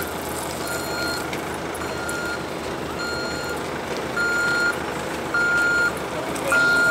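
Vehicle reversing alarm beeping at a steady pace, about one short high beep every second and a bit, six beeps in all, getting louder from about the middle on.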